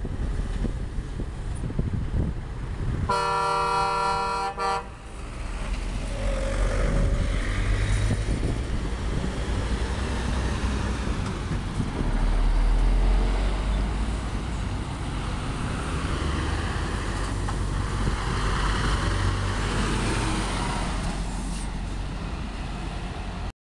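A truck's air horn sounds for about a second and a half a few seconds in. Then a MAN TGX tractor hauling a tanker trailer drives past close by, its diesel engine rumbling loudest about halfway through. Another heavy truck follows near the end.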